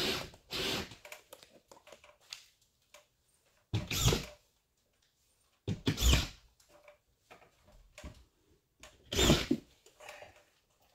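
Drywall screw gun driving screws through a drywall sheet into the studs, in about five short bursts each under a second long, with pauses between.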